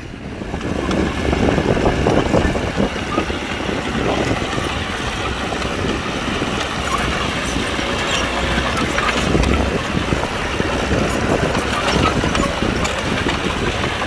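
Heavy diesel earth-moving machinery running hard, a steady engine rumble that swells up about half a second in and stays loud.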